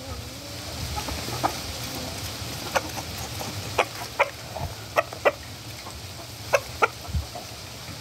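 Rooster clucking: a string of short clucks, several coming in close pairs.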